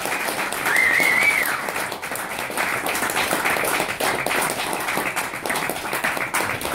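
Audience applauding and clapping, with one high whistle about a second in.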